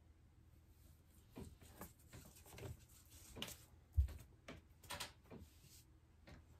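Bare feet shifting on and stepping off a digital bathroom scale onto a tile floor: a scatter of faint taps and clicks, with one dull low thump about four seconds in as a foot comes off the scale.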